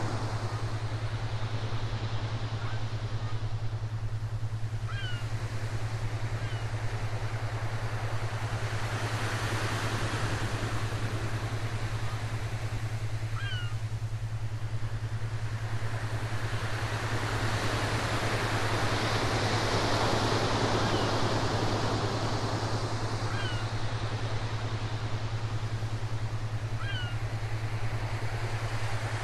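Recorded ocean surf washing in and drawing back in slow swells, over a steady low hum. A few faint, short high calls sound now and then.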